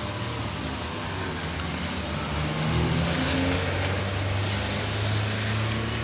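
A car driving past on a snowy road: a low engine hum with tyre hiss that grows louder about halfway through.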